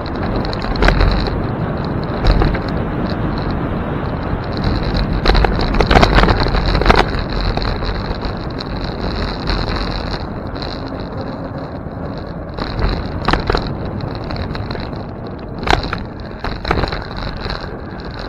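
Riding a bicycle with a mounted camera: steady road and tyre rumble with wind rushing over the microphone, broken by sharp knocks and rattles as the bike jolts over bumps and patches in the pavement. The knocks are loudest and most frequent about five to seven seconds in.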